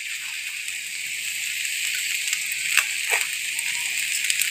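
Steady sizzle of shredded chicken frying in a wok, with two light clicks about three seconds in.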